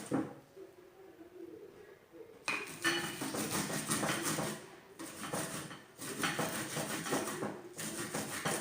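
Onion being grated by hand on a metal grater: irregular rasping strokes with clinks of metal against the bowl, busier from about two and a half seconds in.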